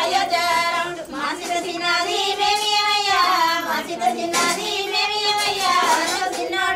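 A high voice singing a Telugu song in long, wavering held notes.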